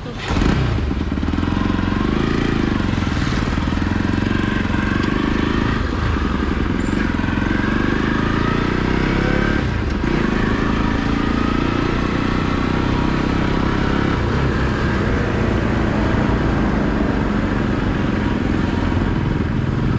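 Motorcycle engine running steadily on the move, with heavy wind rumble on the microphone.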